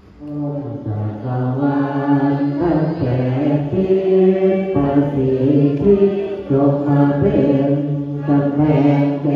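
Several voices chanting Buddhist prayers together in long, held tones at more than one pitch. The chant starts a moment in, after a pause.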